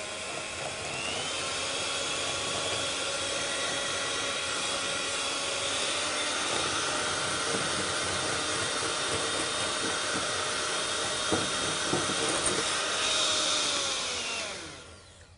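Handheld electric mixer running steadily, its beaters whisking eggs and sugar in a glass bowl for pastry cream. The motor's whine climbs as it comes up to speed about a second in and winds down near the end, with a few light knocks late on.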